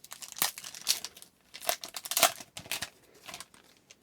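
Hockey card pack wrapper being torn open and crinkled by hand: an irregular run of crackles, loudest a little past two seconds in, that thins out near the end.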